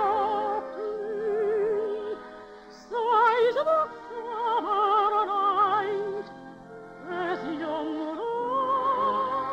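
Operetta music from a 1951 radio broadcast: an orchestra under a solo melody of long held notes with wide vibrato, a new loud phrase entering about three seconds in.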